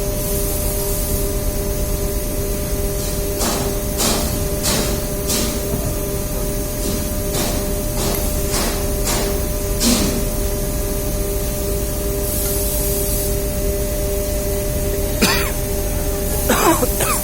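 Steady machinery hum and hiss with two constant tones, broken by a string of sharp clicks and knocks, about ten between a few seconds in and the middle, and a few more near the end. Two short bursts of hiss come near the start and past the middle.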